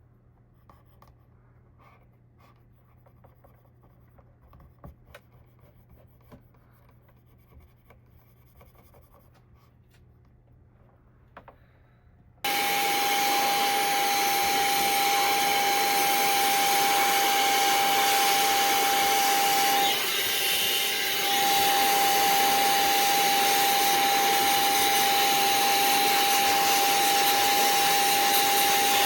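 Faint rubbing and small clicks, then about twelve seconds in a small electric motor switches on abruptly and runs steadily, a high whine over rushing air, blowing or sucking dust out of a desktop PC's CPU cooler fan.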